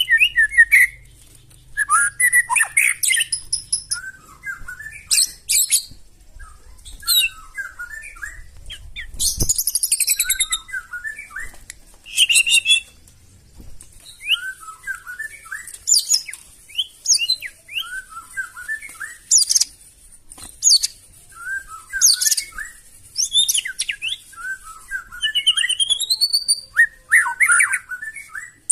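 White-rumped shama (murai batu) singing: a run of short, loud song phrases every second or two, each a quick cluster of sliding notes mixed with high, harsh rattling trills.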